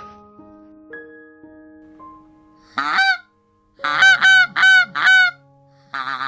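Soft background music notes for the first couple of seconds, then a goose honking: one call, then four loud honks in a row, then a quicker run of shorter honks near the end.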